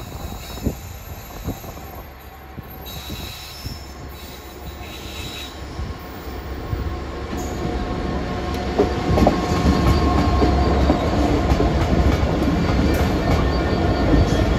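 Convoy of Class 66 diesel locomotives approaching and passing at low speed, their two-stroke V12 diesel engines running with a low rumble that grows louder from about halfway through. Wheels clatter on the rails with a faint wheel squeal.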